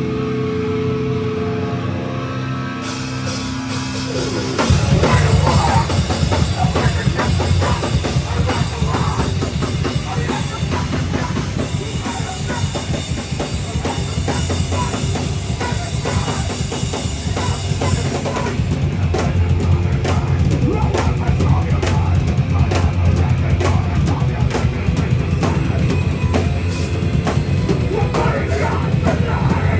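Live heavy rock band playing loud: held guitar notes ring for the first few seconds, then the full band crashes in about four and a half seconds in, with fast, dense drum-kit playing and a heavy bass drum under the guitars.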